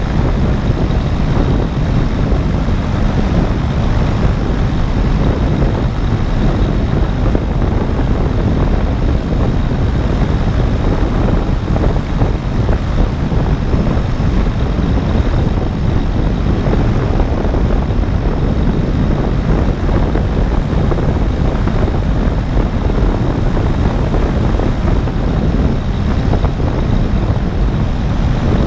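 Steady, loud rush of wind across the microphone of a camera on a paramotor in flight, mixed with the low drone of the paramotor's engine and propeller.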